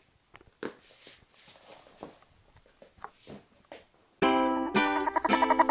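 Faint rustling and soft taps from ferrets playing on bedding. About four seconds in, much louder music with plucked, guitar-like notes cuts in abruptly.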